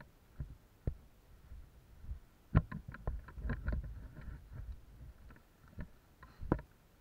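Footsteps and gear handling noise of a person moving on a leaf-covered forest floor: irregular knocks and clicks, busiest from about two and a half to four seconds in, over a low rumble of clothing and equipment rubbing on the microphone.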